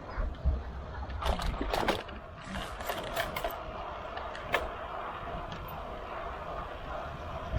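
Road bike in motion heard from a bike-mounted camera: irregular clicks and knocks of the bike and its mount, mostly in the first half, over low rumble and a steady rolling noise.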